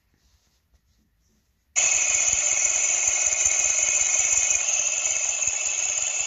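A bearing's noise amplified through a mechanic's stethoscope, played back from a phone's speaker. It starts suddenly about two seconds in as a loud, steady rushing hum with high whining tones over it.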